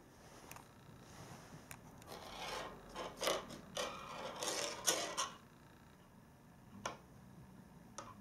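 A Norwegian Forest Cat batting a silver-grass teaser toy across a wooden floor: a run of rubbing and scraping strokes from about two seconds in to past five seconds, with a few light taps before and after.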